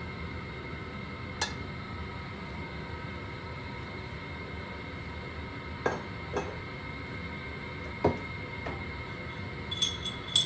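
A steady kitchen hum with a faint whine while oil heats in a wok, broken by a handful of short light clinks and knocks of kitchenware. Near the end come a few quick, brighter ringing clinks.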